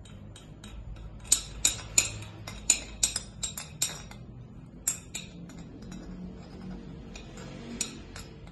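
Half-inch steel wrench clinking against the head bolts of an air compressor's cylinder head as they are tightened. A quick run of sharp metallic clicks comes about a second in, two more follow about five seconds in, and a few more come near the end.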